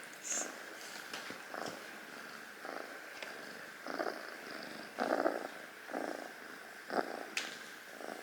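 Kitten purring, the purr swelling and easing with each breath about once a second.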